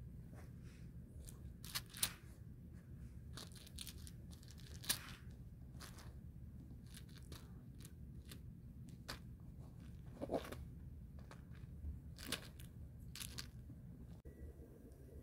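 Cat playing with a small wooden toy on carpet: scattered scratchy clicks and rustles from claws, fur and the toy being pawed and mouthed, the sharpest about two and five seconds in, over a low steady hum.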